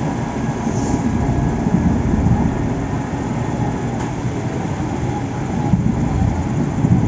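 Heavy construction machinery running steadily, a loud low rumble with no breaks.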